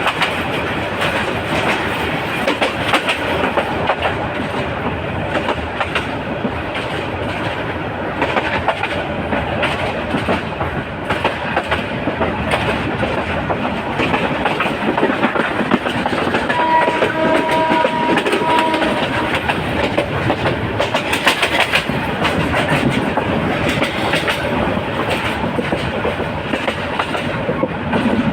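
Passenger train running along the track with a steady rattling clickety-clack of wheels over the rail joints. About two-thirds of the way through, the train's horn sounds in a few short blasts.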